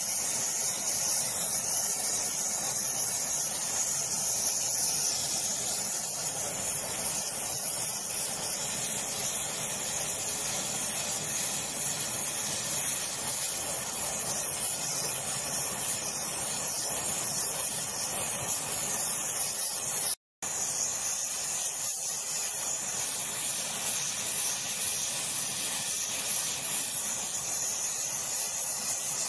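Gas torch flame hissing steadily as it heats the cramped cast iron body of a Record 010 rebate plane to set out a bend, with one very short gap about twenty seconds in.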